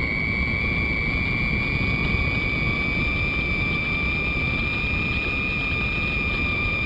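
Electric brushless motor of a Skywalker FPV model plane running at steady throttle, heard from the onboard camera as a high, even whine over a constant rush of wind noise.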